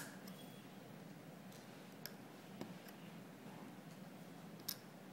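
A few faint, sharp plastic clicks of small Lego pieces being pressed onto a Lego plate, scattered through the quiet, with the clearest one near the end.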